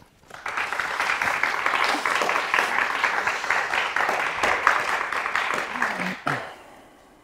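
Applause, a dense patter of hand clapping that starts just after the beginning and dies away about six seconds in.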